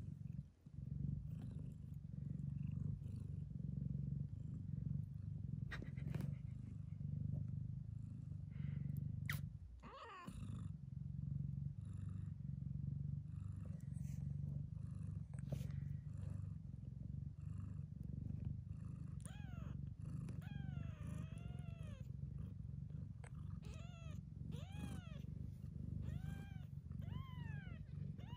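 A mother cat purring steadily close up, with a brief pause about a third of the way in. In the last third, newborn kittens give a series of short, thin, high mews, about one a second.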